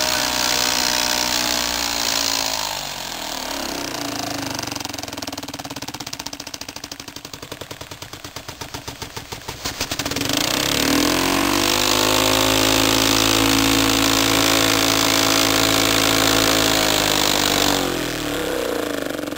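Tiny clear-plastic air engine from a 1986 Tomy Air Jammer toy car running on compressed air: a fast whine with air hiss. It slows a few seconds in to slow, separate puffs, speeds back up about ten seconds in, runs steady and fast, then slows again near the end, as the air supply is turned down and up to find how slow it will run.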